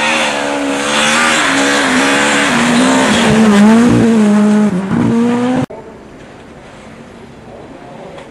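Rally car engine at full throttle as the car approaches and passes, its pitch rising and falling with gear changes, loudest about four seconds in. The sound cuts off suddenly near six seconds to a much quieter, distant rally car engine.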